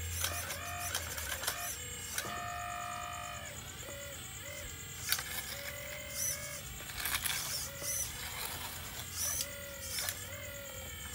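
Scale RC hydraulic excavator's electric pump whining as the long boom and bucket swing and dig, its pitch stepping up and down as the load changes, with scattered clicks.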